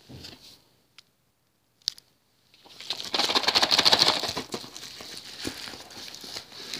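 Padded paper mailer handled with a few light rustles and clicks, then torn open almost three seconds in: loud tearing and crinkling of the envelope that settles into quieter rustling.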